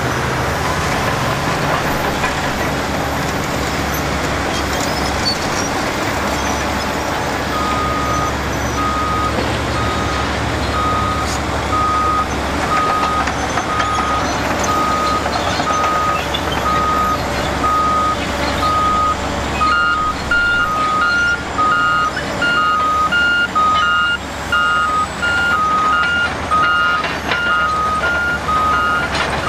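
Heavy diesel earthmoving machines (a Cat 5130B excavator, a Cat 777 haul truck and a Cat track-type dozer) running steadily. About a quarter of the way in, a back-up alarm starts beeping repeatedly. About two-thirds in, a second, slightly higher back-up alarm joins it: machines reversing.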